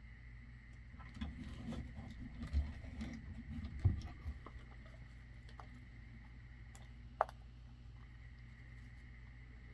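Handling noises from a hard-shell zippered watch carrying case: a run of soft knocks and rustles over the first few seconds, then a single sharp click about seven seconds in, over a steady low hum.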